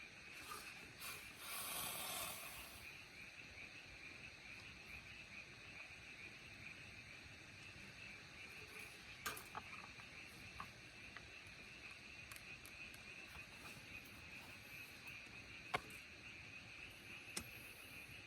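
Faint, steady chirring of insects, with a brief rustle about two seconds in and a few isolated sharp clicks later on.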